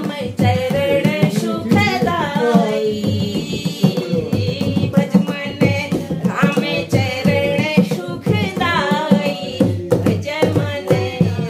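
Women singing a Hindu devotional bhajan in chorus, accompanied by a dholak drum beaten in a steady rhythm and hand clapping.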